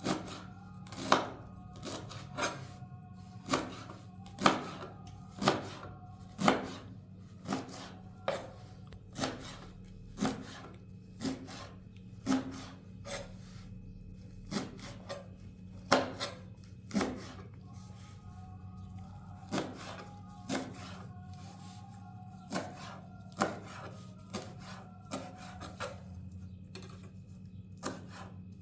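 Knife chopping chicory leaves: sharp single cutting strokes at roughly one a second, some coming in quick pairs, with rasping rubs between them.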